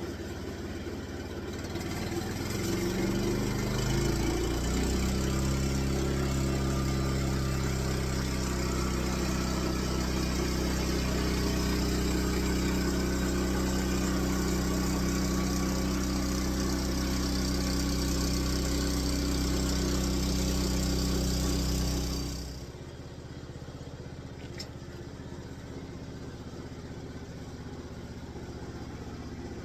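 The homemade sawmill's engine rises in speed over a few seconds, then runs steadily at speed. About 22 seconds in it drops sharply to a quieter, lower running sound.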